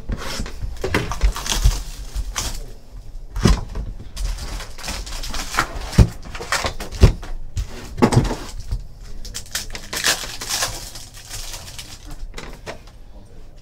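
Cardboard trading-card hobby box being opened and its foil packs handled: crinkling and rustling of the foil wrappers, with several sharp knocks of packs and box on the table.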